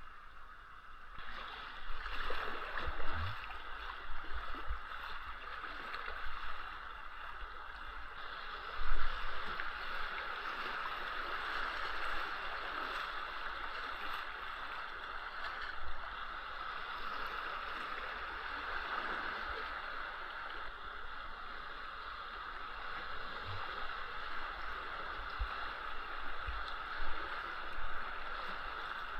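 Steady rush of flowing water, with a few dull knocks now and then, the loudest about nine seconds in.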